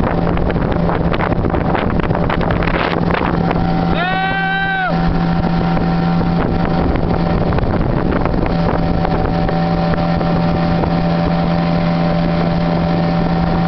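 Motorized canoe's engine running steadily with a constant low hum, with wind and water noise. About four seconds in, a high held call with a steady pitch sounds once for about a second.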